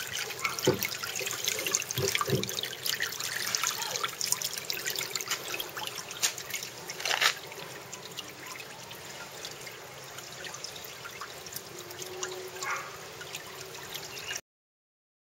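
Water trickling and splashing into a plastic aquaponics grow bed around a standpipe. It is livelier for the first several seconds with one sharper splash, then settles to a quieter trickle, and cuts off suddenly near the end.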